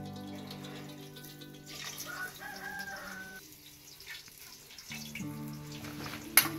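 Background music with long held notes over a light hiss of eggplant slices frying in oil. A rooster crows about two seconds in, lasting about a second and a half, and there is one sharp click near the end.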